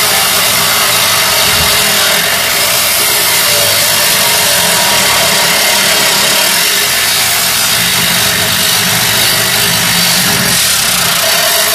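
Corded power tool running steadily as it cuts through the metal body of a Land Rover Discovery to take the roof off.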